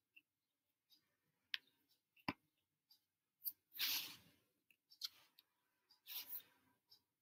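Very quiet room tone broken by a few faint sharp clicks and several short soft rustling noises, the loudest about four seconds in.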